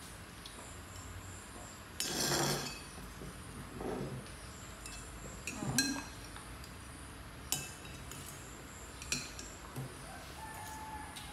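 Spoons and dishes clinking at a meal table: a handful of sharp clinks of metal spoons on china plates and a glass. About two seconds in there is a louder, brief rustling burst, and there are a couple of short voice-like sounds.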